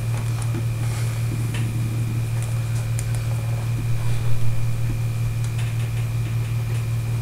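A steady low mechanical hum with a thin, steady high-pitched whine above it and a few faint ticks; the hum swells briefly a little past the middle.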